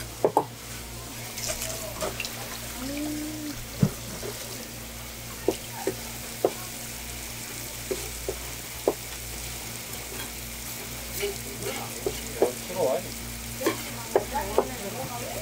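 Water spraying from a hose nozzle onto a wet wooden cutting board in a steady hiss, with irregular sharp knife taps and scrapes on the board as spoon worms are slit open and rinsed.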